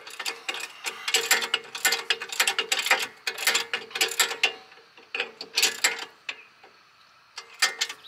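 Ratchet wrench clicking rapidly as the rear brake caliper bolts are run in snug by hand. The clicking thins out about four and a half seconds in, with a few short runs near the end.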